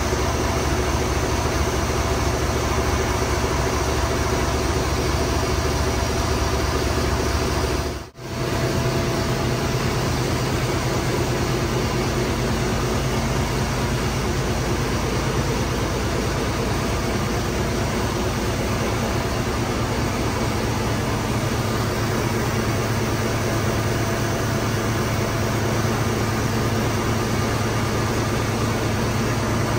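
Foden crane truck's diesel engine running steadily while its crane lifts a tank engine. There is a brief drop-out about eight seconds in, after which the drone sits a little higher.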